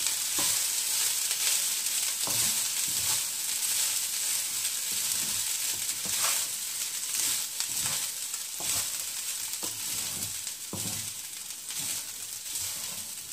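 Cooked basmati rice sautéing in oil in a non-stick wok: a steady sizzling hiss, with the scrape and knock of a wooden spatula stirring and tossing the rice every few seconds.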